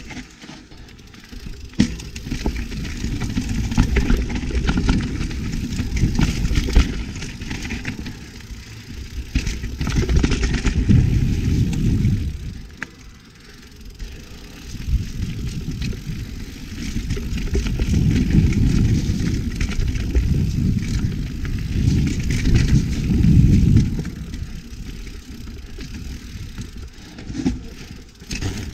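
YT Capra mountain bike rolling fast down a rough, rooty dirt trail: a low rumble of tyres over dirt and roots, with sharp clattering knocks from impacts. The rumble swells and eases in waves, with a lull about halfway.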